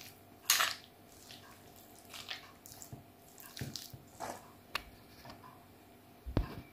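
A fork and spoon mixing a mayonnaise-dressed vegetable salad in a bowl: short wet squelches of the salad with scattered clinks and scrapes of the utensils against the bowl, the loudest about half a second in. A low thud near the end.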